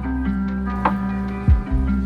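Chillhop background music: sustained mellow chords over a bass line, with a light beat and a deep kick-drum hit about one and a half seconds in.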